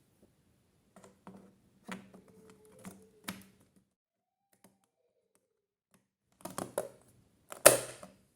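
Scattered clicks and knocks of computer hardware being handled, a few in the first half, a short cluster later, then one loud thump near the end.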